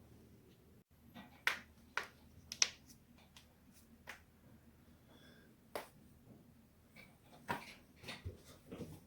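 Neck and back joints cracking: a run of sharp pops and clicks, about eight of them at uneven spacing, the loudest a little over two and a half seconds in.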